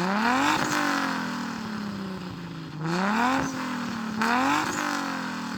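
Toyota 2JZ straight-six engine revved three times: each blip climbs quickly and then falls back slowly towards idle.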